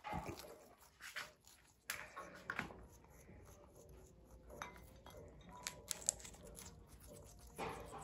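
Faint, scattered clicks and taps of parakeet beaks picking carrot and pea pods off a ceramic plate, with a couple of sharper clicks about six seconds in.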